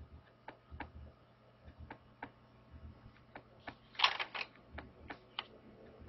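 Faint, irregular sharp clicks and taps, with a quick cluster of louder clicks about four seconds in.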